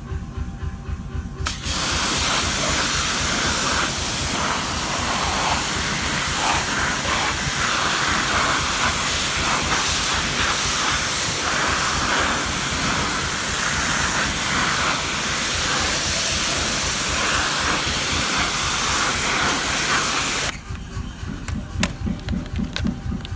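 Pressure washer jet spraying a hubcap with a loud, steady hiss. It starts about a second and a half in and cuts off suddenly near the end.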